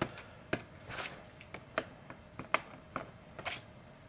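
A cloth being wiped over a carbon-fibre wing panel in short strokes, heard as about seven quick swishes and light taps, roughly two a second.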